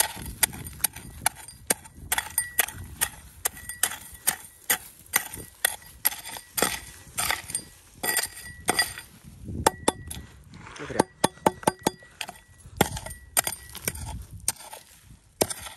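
Metal blade of a hand hoe chopping repeatedly into stony soil and loose rock: sharp strikes with clinks of metal on stone, about two or three a second, with some scraping of dirt and gravel between them.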